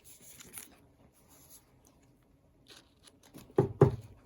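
Trading cards and card sleeves being handled, with faint scattered rustling and sliding. A brief pair of louder, duller bumps comes near the end.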